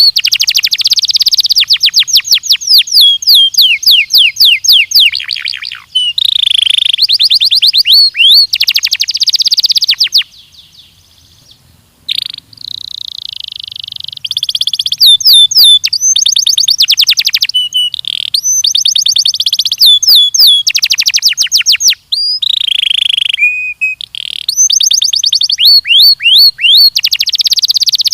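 Belgian canary singing: long, rapid trills of quick, falling whistled notes, changing from one run to the next, with a short break about ten seconds in.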